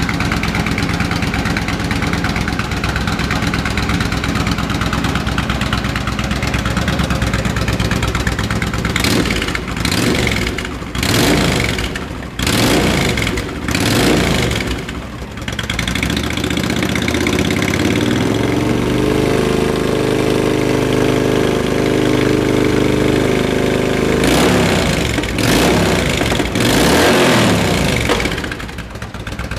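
2007 Yamaha V-Star 1300's liquid-cooled V-twin running at idle, then revved in about four short blips a third of the way in. It holds at a slightly raised speed for several seconds, then is revved two or three more times near the end.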